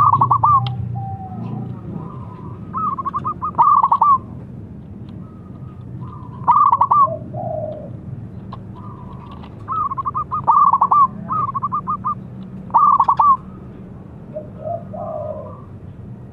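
Zebra dove cooing: about five bursts of rapid, stuttering coos spaced a few seconds apart, with a softer, lower call twice, over a steady low hum.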